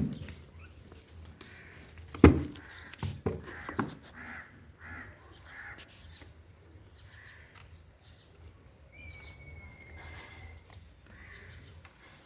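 A crow cawing over and over, about two caws a second for several seconds. Sharp knocks come a couple of seconds in, the first one the loudest sound. Later there is a thin, steady whistle for about a second.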